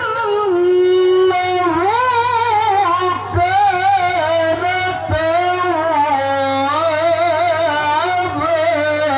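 A man's voice through a microphone and loudspeakers, drawing out long melismatic phrases in the ornamented style of Quran recitation (tilawah), the pitch gliding and quivering from note to note. A low steady hum runs underneath.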